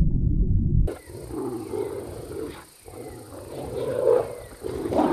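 A low rumble for about the first second. It cuts to African wild dogs calling, with pitched calls rising and falling, for the rest of the time.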